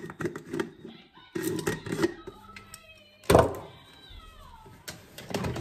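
Glass storage jar being handled on a kitchen worktop: a series of clinks and knocks, with one sharp knock about three seconds in. Around that knock a thin pitched squeal slides downward.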